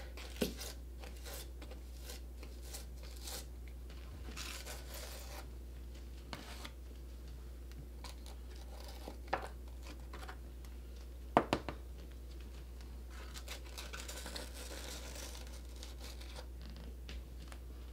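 Small plastic trowel scraping and smearing grout over ceramic wall tiles to fill the joints, in short faint strokes. A few sharp clicks of the trowel against the tile come through, the loudest about eleven seconds in.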